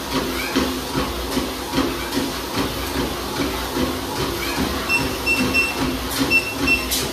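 Lifelong LLTM162 treadmill's 2HP-peak DC motor running with a steady hum while bare feet land on the belt about twice a second. From about five seconds in the treadmill gives a series of short, high electronic beeps.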